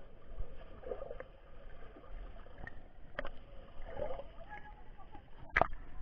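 Water sloshing and gurgling around a camera riding at the surface of a water-park pool and dipping under it, with a few sharp knocks, the loudest about five and a half seconds in.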